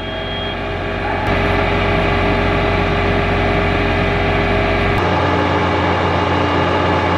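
Tractor engine running steadily, heard from inside the cab, while its hydraulics unfold the John Deere ExactEmerge planter. The sound swells over the first second and changes character about five seconds in.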